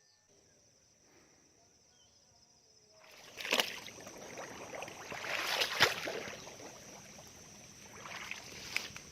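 Water sloshing and splashing from movement through water in a flooded rice paddy, starting about three seconds in and swelling twice. There are a couple of sharp knocks along with it.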